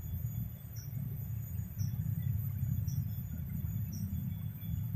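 Outdoor ambience beside a forest pool: a steady low rumble, with a short high chirp repeating evenly about once a second and a faint steady high whine.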